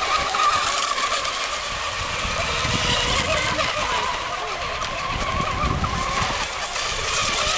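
Two radio-controlled racing hydroplanes running flat out around the course: a steady, wavering high whine over a hiss of spray.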